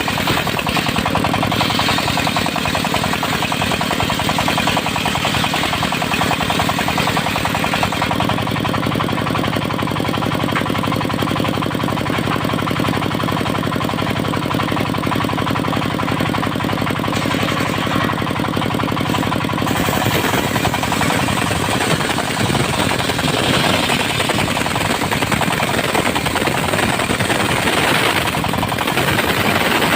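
Diesel engine of a portable circular sawmill running with a fast, steady knocking beat. Its note shifts about a quarter of the way in, and again just past the middle, where it turns rougher and noisier.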